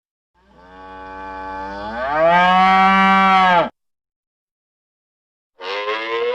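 Cow mooing: one long moo that swells and rises in pitch about two seconds in, then after a pause a second moo begins near the end.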